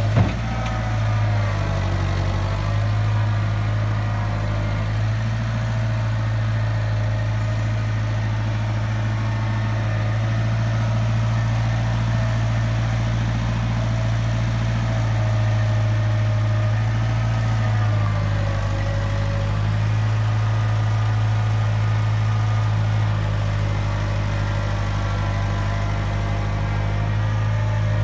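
International Harvester backhoe-loader's diesel engine running steadily, with a higher whine whose pitch dips and rises slowly as the machine is worked.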